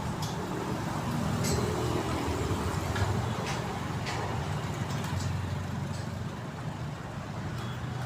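An engine running steadily with a low hum, with a few light clicks over it.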